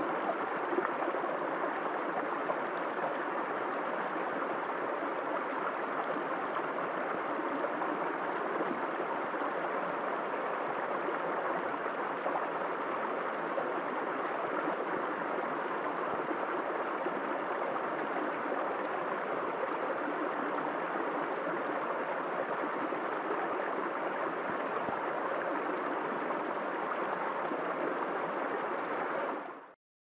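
Shallow rocky creek flowing over stones and a small riffle, a steady rush of water that cuts off suddenly near the end.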